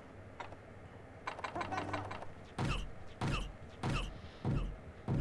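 A locked wooden door with an iron latch being forced: light clicks and rattles of the latch, then heavy thuds against the door about every two-thirds of a second from about halfway in.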